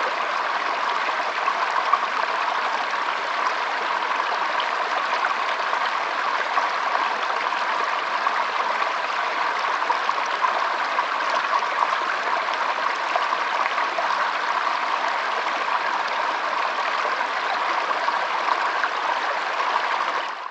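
Flowing water, a steady, even rush with a fine splashing texture that fades out at the very end.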